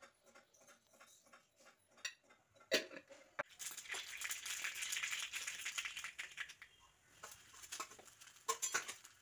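Mustard seeds spluttering in hot coconut oil: scattered pops that build into a dense crackle about three and a half seconds in, then thin out again to a few pops.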